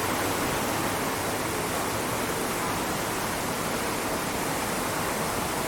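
Steady, even rain hiss with no breaks or separate drops standing out.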